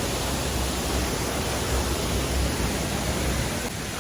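Steady rushing of water from a waterfall or river, an even hiss with a low rumble underneath.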